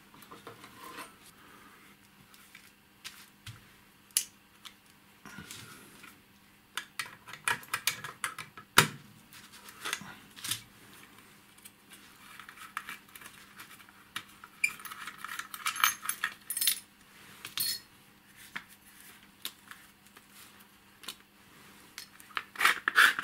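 Metal clicks, clinks and scraping as the large nut on the rear connector of an aircraft radar altimeter is worked loose and its metal case is handled and slid off. The clicks are irregular, with runs of quick rattling clinks about two-thirds through and again near the end.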